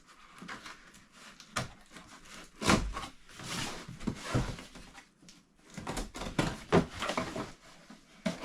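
Irregular rustling and scraping of packaging being handled, with a few short knocks, as a plastic-wrapped pet bed is taken out of a cardboard box.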